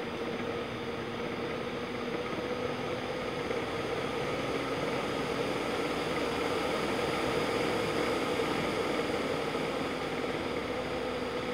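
Electric DC blower driving a model gas turbine's spinning plastic fan and compressor rotors in speed test: a steady whir with airy hiss and a steady hum, swelling slightly around the middle and easing near the end.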